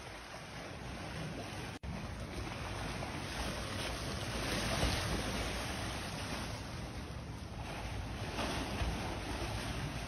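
Water churning and splashing as a hippopotamus swims and thrashes in a pool, a steady rushing splash that swells about halfway through.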